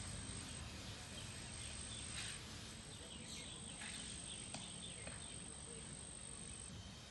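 Outdoor ambience: a steady background hiss with a thin, high, continuous insect note that breaks off a few times, and a few faint short chirps.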